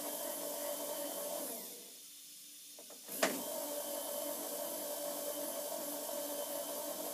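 Electric table power feed motor on a mill/drill, running steadily. About a second and a half in it winds down to a stop, then starts again with a sharp click just after three seconds and runs on.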